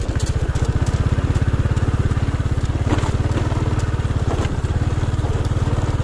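Motorcycle engine running steadily as it rides along a rough gravel dirt track, with a fast, even chugging pulse. A few knocks and crunches come from the tyres on the loose stones.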